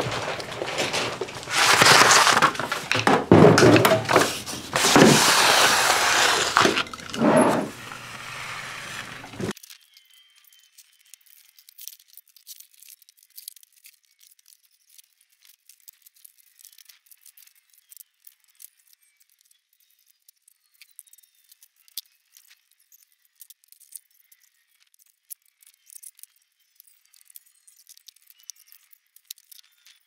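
Loud crashing and clattering of junk being thrown out and broken, in several heavy bursts over about the first ten seconds. Then only faint, thin ticking remains.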